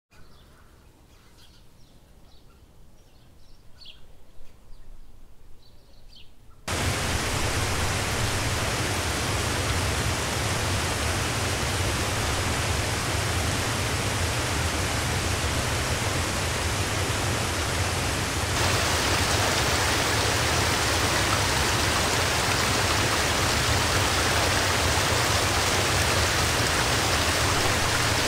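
A faint, quiet outdoor bed with a few short, high chirps, then about seven seconds in a sudden cut to the loud, steady rush of a waterfall. About eighteen seconds in the rush turns abruptly brighter and hissier, as water running fast over rocks in a creek.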